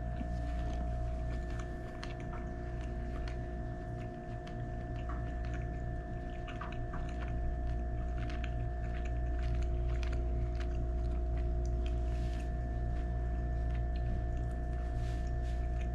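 A person chewing and eating a mouthful of a soft, creamy chicken dish: scattered faint wet clicks and mouth sounds over a steady low hum.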